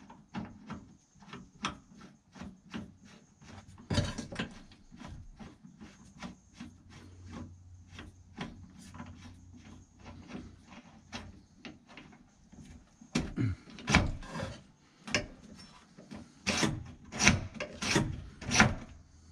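Irregular small clicks and scrapes of a hand and a small tool working a knob and bezel on a 1963 Chevrolet Impala's metal dash switch panel, with louder knocks and rattles in the last few seconds.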